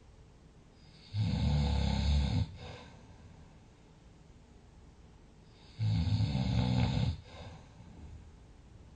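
A sleeping person snoring: two loud snores, each a little over a second long and about four and a half seconds apart, with a short fainter breath after each and only a low background between them.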